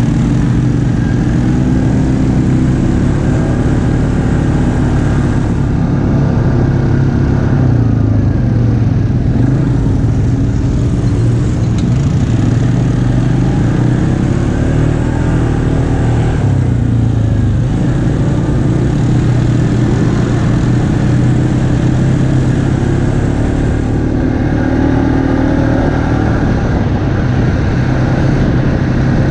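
ATV engine running at low speed while riding along a dirt trail, steady, with its pitch rising and falling a little a few times as the throttle changes.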